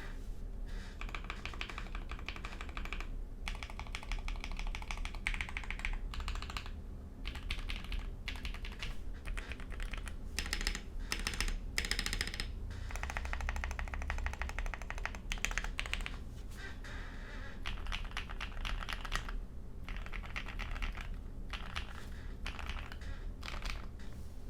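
Typing on a Tofu60 60% mechanical keyboard with lubed and filmed Durock POM linear switches, a polycarbonate plate and ABS doubleshot keycaps, the case foam-filled and tape- and O-ring-modded against hollowness and ping. The keystrokes come in quick runs of a second to a few seconds with short pauses between.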